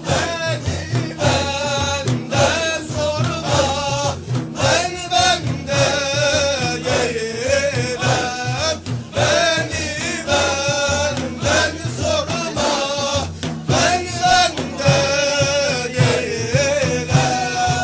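Naqshbandi Sufi zikr: voices sing a wavering devotional melody in repeated phrases over a steady rhythmic low pulse.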